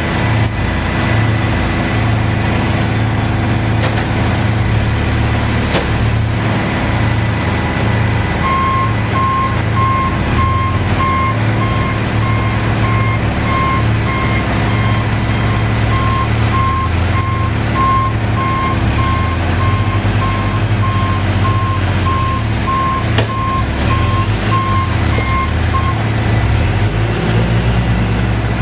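Heavy diesel road-milling machinery and trucks running with a loud, steady drone. A vehicle's reversing alarm beeps steadily from about eight seconds in until shortly before the end.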